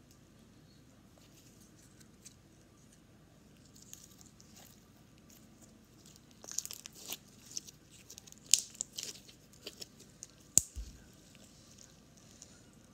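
Glitter slime being stretched and squeezed by hand: soft, sticky crackling and sharp popping clicks that start about halfway through, with two pops standing out as the loudest.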